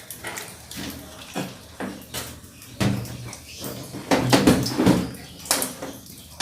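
Irregular knocks, clatter and scraping from a washing machine's body being shifted and tipped over by hand, loudest about four seconds in.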